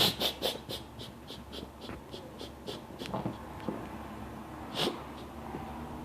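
A person's breathy, wheezing laughter: a quick run of short hissing breaths, about four or five a second, that fades out, followed by a few softer breaths and one stronger puff later on.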